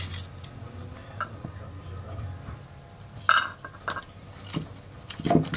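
Wooden kindling sticks clattering and knocking against a small metal tin as they are handled. There are a few separate sharp knocks and clinks, the loudest about three seconds in and another near the end.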